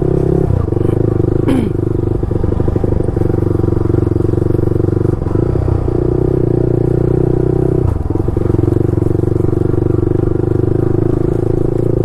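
Motorcycle with an aftermarket exhaust running at a steady low speed, heard close up from the bike, its note dipping briefly a few times.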